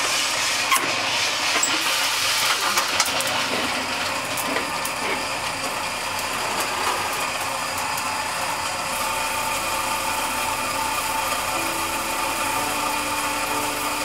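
Drum coffee roaster running with a steady rushing mechanical noise, with scattered sharp clicks during the first few seconds. Soft background music comes in near the end.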